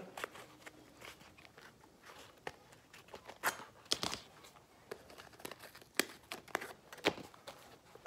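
Faint rustling and scattered light clicks as a fabric protective cover is pulled off a multi-tool axe-pickaxe head and the metal head is handled.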